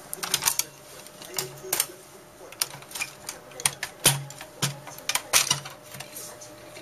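Hands handling the plastic gears and roller shaft inside an opened HP inkjet printer's paper-feed mechanism: irregular plastic clicks and clacks, the sharpest about four seconds in.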